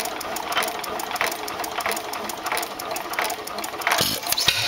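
1914 IHC Titan 2½ hp hit-and-miss engine running, its valve gear and linkage clicking in a steady rhythm, a stronger click about every 0.6 s. A louder burst of noise comes near the end.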